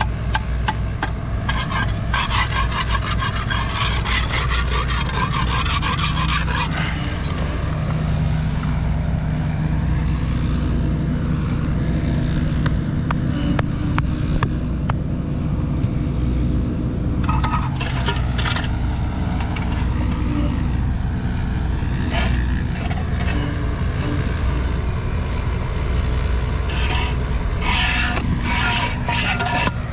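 A steady low engine rumble under repeated scraping: one long stretch of dense scraping a couple of seconds in, then shorter scraping strokes later on.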